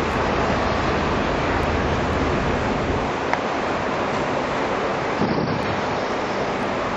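Steady wind rushing over the microphone on a ship's open deck, with a low rumble underneath that drops away about three seconds in.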